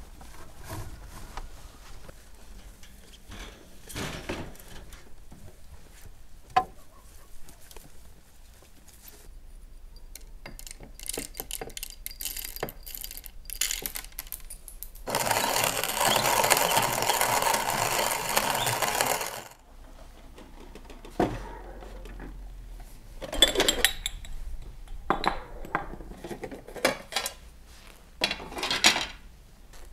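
Coffee beans rattling as they are poured into a cast-iron hand-cranked coffee mill, then about four seconds of steady grinding, the loudest sound. Scattered clicks and knocks come before and after.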